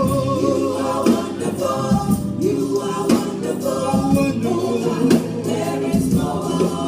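Live gospel worship song: several voices singing together over instrumental accompaniment, with sharp percussion hits throughout.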